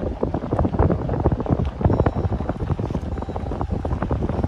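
Wind buffeting the microphone: a dense, irregular rumble with many short gusty thumps.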